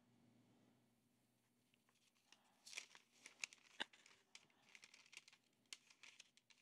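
Parchment paper crinkling faintly as it is folded and creased by hand, in a scatter of short crackles starting about two and a half seconds in.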